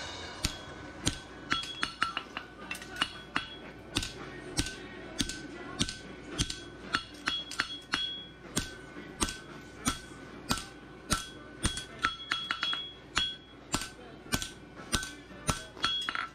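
Hand hammer striking a red-hot steel heartbar horseshoe held in tongs on the anvil: sharp blows about two a second, some in quick runs, each leaving a metallic ring from the anvil and shoe. Background music plays underneath.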